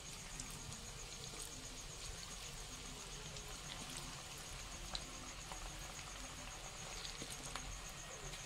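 Batter-coated chicken pieces deep-frying in hot oil in a kadai: a faint, steady sizzle with scattered small crackles as more pieces are dropped in.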